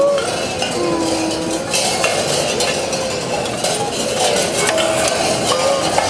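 Tin cans hung all over performers' costumes clinking and rattling against each other and against a thin metal rod, a dense run of small metallic clicks. Now and then a short pitched tone sounds over the clatter.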